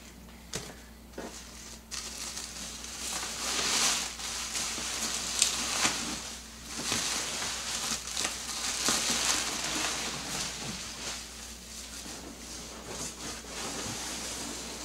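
Clear plastic packing wrap crinkling and rustling as it is handled and pulled out of a cardboard box, swelling and fading unevenly.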